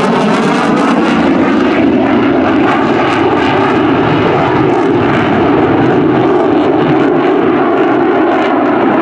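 Lockheed Martin F-22 Raptor's twin F119 turbofan jet engines, a loud steady roar as the fighter flies a go-around and pulls away. The high hiss dulls after a couple of seconds as the jet recedes.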